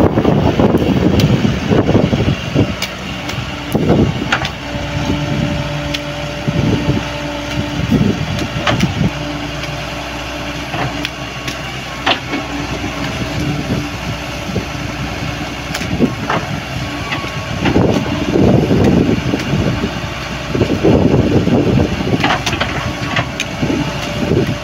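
A vehicle engine running, a steady hum through the middle, with louder, rougher rumbling near the start and again toward the end.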